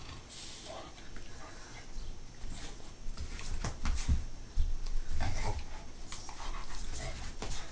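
Two small pet dogs playing for a ball, making short whimpering sounds, with scattered clicks and a run of low thumps in the middle as they scramble about.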